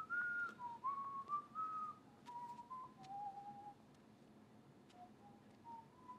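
A person whistling a tune in single, clear notes that step up and down. The tune pauses about two-thirds of the way through, then resumes with a rising run of notes near the end.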